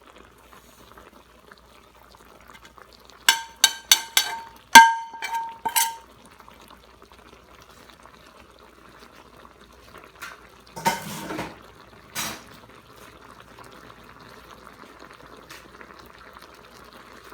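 Spices being added to a pan of simmering chicken: a spoon clinks against metal several times in quick succession, with a ringing tone. Later there is a brief scrape or rustle, over a faint steady simmer.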